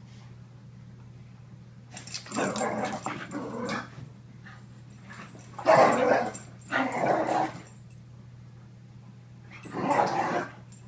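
Two Brittany dogs play-fighting, growling at each other in three bouts: about two seconds in, again around six to seven seconds, and near the end. It is play, housemates rough-housing, not a real fight.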